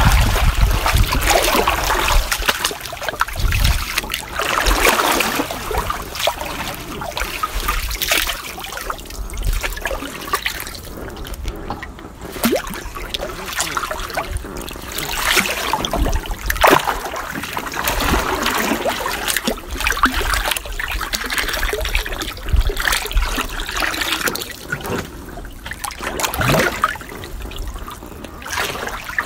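A person splashing and dabbling in swimming pool water: irregular splashes and trickling water, rising and falling unevenly, with louder splashes now and then.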